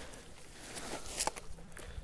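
Footsteps and a few faint scuffs and rustles as a rolled nylon tent is set down on a plastic tarp over a gravel tent pad.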